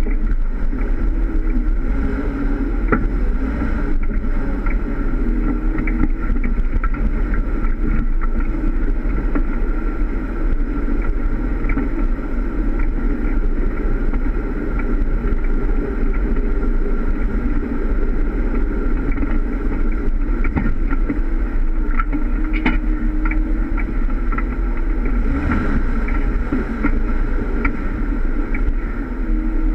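Jeep Wrangler engine running steadily while driving an off-road course, with a slightly wavering drone and a deep rumble. A few light clicks are heard now and then.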